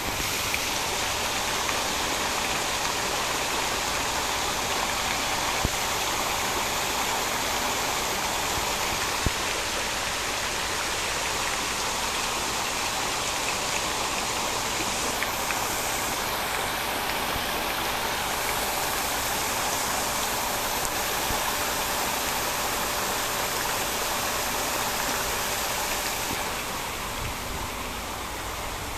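Water showering down like heavy rain from an evaporative condenser's coil bank and splashing into the flooded basin below: a steady, dense hiss that eases slightly near the end.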